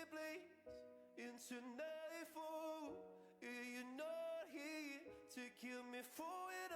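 Quiet background music with a singing voice.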